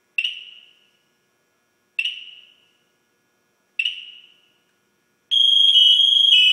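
PASS (personal alert safety system) alarm on a Scott SCBA: three short high beeps about two seconds apart, each dying away quickly, then about five seconds in the loud full alarm starts, a continuous shrill sound of two tones at once. The alarm is being set off to prove that it works.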